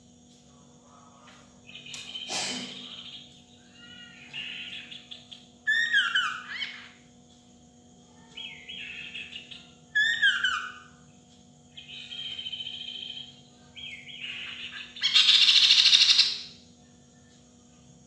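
Chestnut-capped babbler singing a string of short phrases, each a second or two apart: quick descending slurred whistles mixed with buzzy chattering notes. The loudest is a harsh, noisy phrase near the end.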